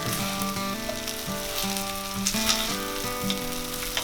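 Cooked rice being stirred through a sizzling oil tempering in a pan, with a couple of brief scrapes about two and a half seconds in. Soft background music plays underneath.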